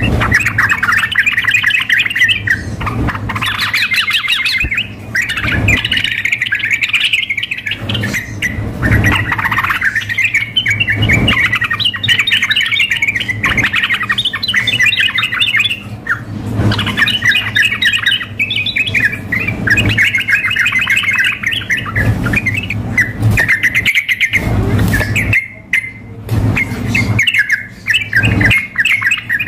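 Yellow-vented bulbuls (trucukan) singing and calling almost without pause in fast, chattering, bubbling phrases, a male in full song. Occasional low thumps run underneath.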